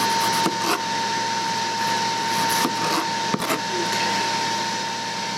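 Ninja Foodi Grill's fan running steadily while it preheats, a constant hum with a high whine. A few sharp knife clicks on the cutting board come through it as a cucumber is peeled and cut.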